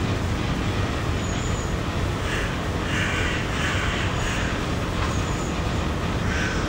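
Steady low rumble of city traffic, with a run of short harsh crow-like caws about two to four seconds in.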